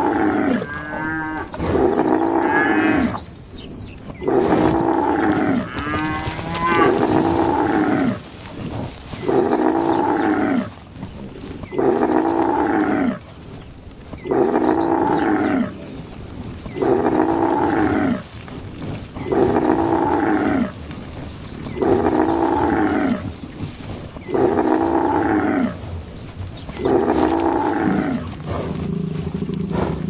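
Cows mooing over and over, one long call with falling pitch about every two seconds. A higher, wavering call comes in twice near the start.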